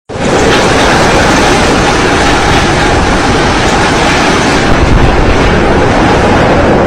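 Typhoon-force wind blowing hard across the microphone as a loud, steady rumbling rush, starting and cutting off abruptly.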